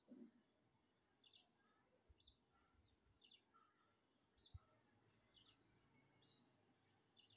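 A bird chirping faintly and repeatedly, a short high call about once a second.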